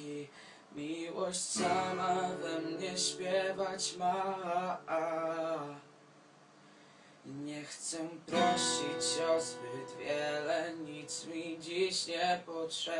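A man singing while strumming an acoustic guitar. The song breaks off for about a second in the middle, then picks up again.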